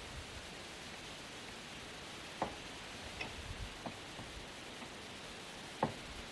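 Two sharp clicks, the first about two and a half seconds in and the second near the end, with a few fainter ticks between them, over a steady hiss.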